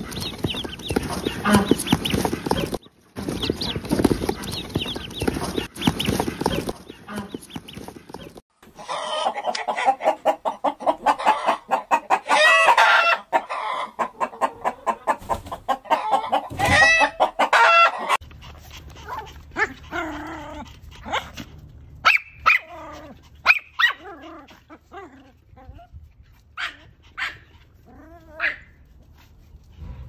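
Domestic poultry calling: a crowd of ducklings peeping in rapid, overlapping calls, then domestic hens clucking in short, scattered calls over a low steady hum.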